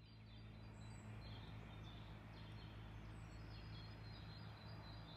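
Faint birds chirping, short scattered calls, over a low steady hum of background noise.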